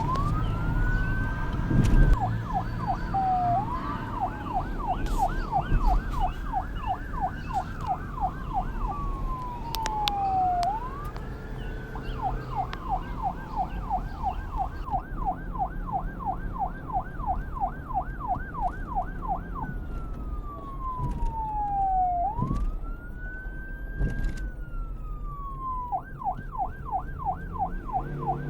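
Electronic police car siren switching back and forth between a slow rising-and-falling wail and a rapid yelp of several sweeps a second, over a low rumble.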